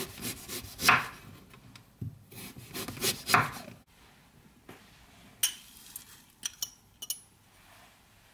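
Kitchen knife slicing a carrot into rounds on a wooden cutting board: two runs of crisp cuts, each ending with the blade knocking the board. About halfway the cutting stops, and a few light, sharp clicks follow.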